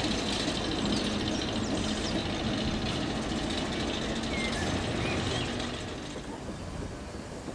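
A GWR 4500 Class steam tank engine and a Class 08 diesel shunter running coupled together: a steady engine drone with hissing, which eases down about six seconds in.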